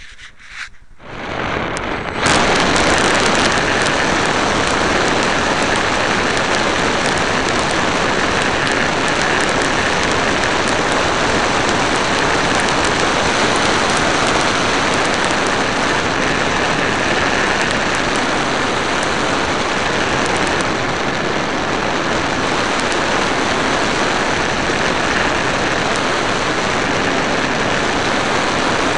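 Model airplane's motor and propeller running steadily with heavy wind rush, heard through a keyring camera mounted on the plane in flight. The noise comes in about two seconds in and holds at an even level, with a faint steady whine in it.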